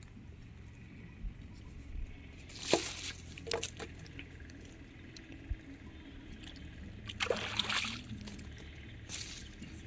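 Water splashing, two short splashes about five seconds apart, the second longer, with small drips and trickles between.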